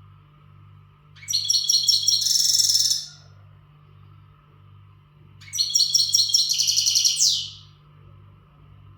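Male European goldfinch singing two bursts of rapid, high twittering song, each about two seconds long with a pause between. It is the full-powered song of a male in breeding condition.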